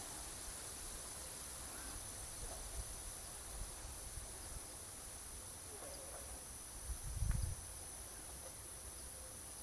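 Faint, steady chirring of insects such as crickets over a soft hiss, with a brief low rumble about seven seconds in.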